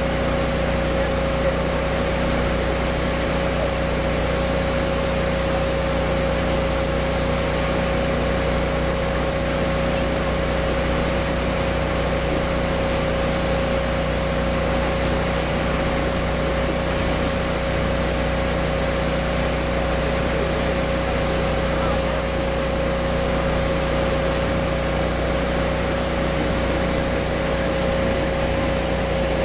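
Heavy construction machinery running steadily: a low engine drone with a steady whine over it, unchanging throughout.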